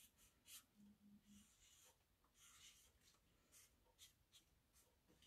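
Faint scratching of a marker drawing on paper in a series of short strokes, some a little longer than others.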